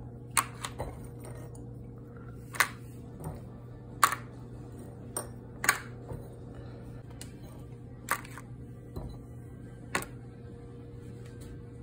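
Scattered sharp taps and clicks, about ten at uneven intervals, as sugared gummy bears are picked from a bowl and set into a plastic ice cube tray. A steady low hum runs underneath.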